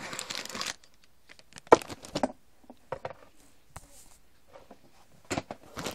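Unpacking a puzzle: a brief rustle, then scattered sharp plastic clicks and clacks as a clear plastic packaging tray is handled. The loudest clack, with a short ring, comes a little under two seconds in, and a quick cluster of clicks comes near the end.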